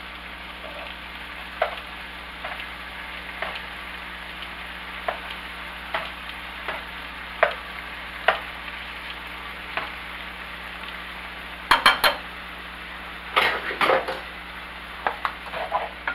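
Shaved beef and chicken sizzling in a frying pan, with kitchen scissors snipping the meat in the pan about once a second. Past the middle come a few louder clicks and clatters, then a wooden spatula stirring the meat.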